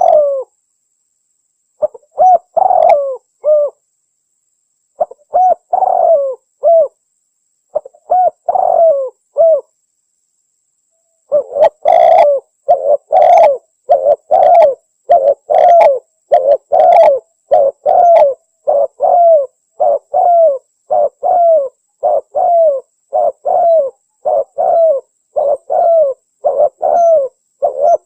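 Spotted dove (tekukur) cooing, the local Javanese 'anggunan' style of coo. The coo phrases come in short groups with brief pauses at first, then follow each other without a break from about eleven seconds in.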